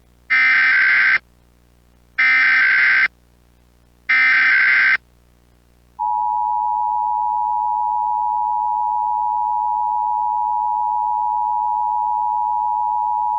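Emergency Alert System tones: three short bursts of warbling SAME header data about a second apart, then, about six seconds in, the steady two-tone EAS attention signal starts and holds.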